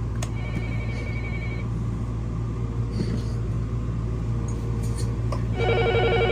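Electronic toy phone (VTech Little Smart Mr. Squawky Talky) switching modes: a click, then a short trilling ring. About five and a half seconds in a louder trilling ring starts. A steady low hum lies under it all.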